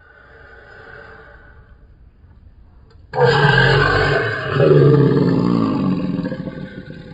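A loud, deep roar bursts in about three seconds in, after a quieter stretch. It goes on for about four seconds, sliding down in pitch midway, and fades near the end.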